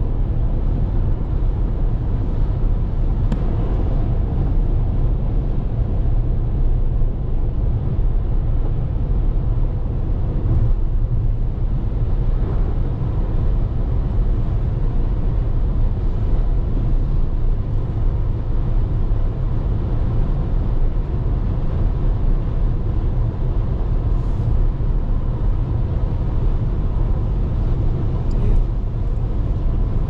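Steady low rumble of a car driving at highway speed, heard inside the cabin: tyre and road noise with the engine beneath.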